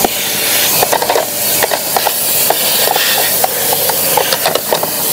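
Vacuum cleaner running with a steady hiss of air as its brush-nozzle hose sucks leaves and dirt out of a car's empty battery tray, with scattered small clicks throughout.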